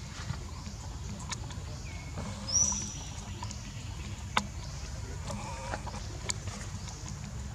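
Short high-pitched animal chirps and squeaks, the loudest a rising chirp about two and a half seconds in, with a few sharp clicks over a steady low rumble.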